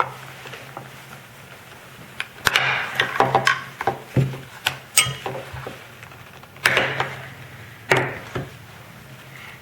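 Scattered clicks, knocks and short scrapes of a disassembled plastic car door handle and hand tools being handled and set down, over a steady low hum.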